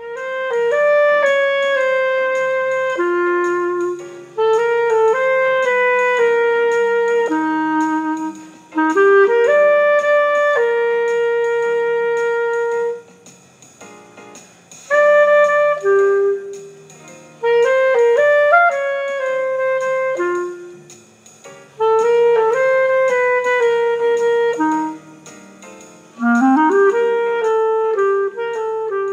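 Background music: a solo rosewood clarinet playing a relaxed jazz melody in short phrases with brief breaks, over a quiet backing. Near the end it slides up into a held note.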